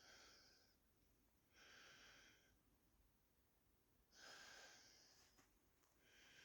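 Faint, slow breathing of a person, one breath about every two seconds.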